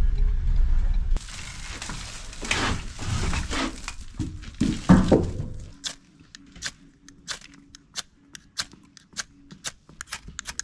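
A car's cabin rumble cuts off about a second in, followed by a few seconds of rustling noise with some louder knocks. Then a ferrocerium rod is struck repeatedly with a metal striker to throw sparks onto tinder, making short sharp scrapes about three times a second.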